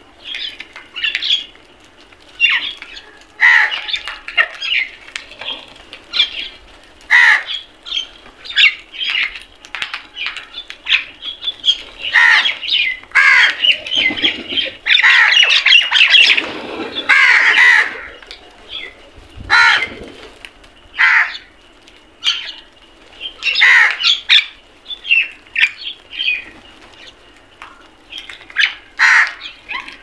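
A flock of house crows giving short, harsh caws one after another, swelling into an almost continuous squabbling clamour about halfway through, then thinning again to scattered calls.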